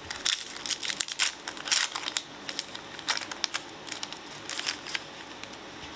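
A foil booster-pack wrapper being torn open and crinkled by hand, with irregular crackling throughout.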